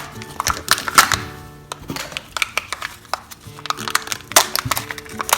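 Quick crackles and clicks of a Kinder Joy egg being unwrapped and opened: the foil wrapper crinkling and the plastic capsule being handled. Background music with steady tones runs underneath.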